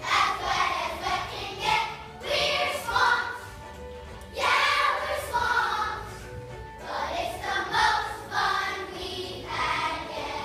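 A large group of children singing together on stage, in short phrases with brief gaps between them, over a steady musical accompaniment.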